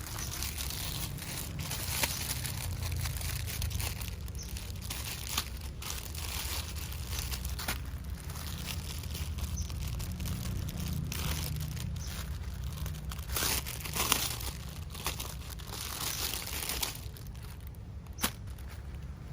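Plastic parcel packaging crinkling and tearing in irregular bursts as a package is opened by hand, with a few sharp clicks, over a steady low hum.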